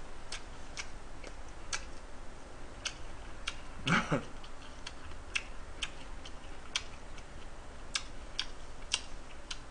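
Faint sharp ticks, about two a second and fairly regular, with a short voiced sound about four seconds in.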